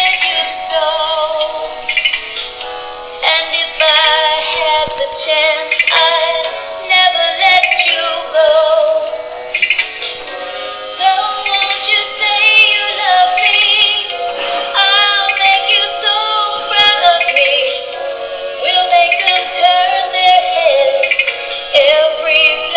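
Bumblebee musical toy playing a song with a synthetic singing voice through its small speaker.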